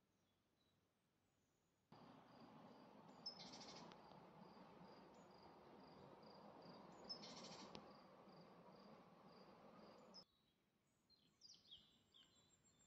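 Faint birdsong outdoors: scattered high chirps, then a stretch of faint hissing ambience with a short high note repeated about twice a second and two brief trills, which starts and cuts off abruptly.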